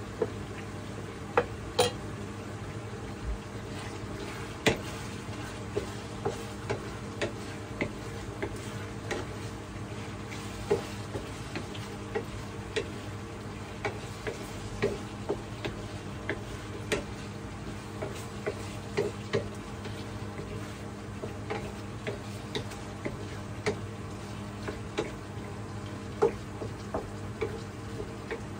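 Pork belly and green chillies frying in a pan, stirred with a wooden spatula that scrapes and knocks against the pan in frequent short clicks over the steady sizzle.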